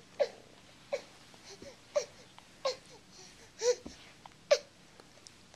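A baby fussing: six short, high-pitched cries, each falling in pitch, about a second apart.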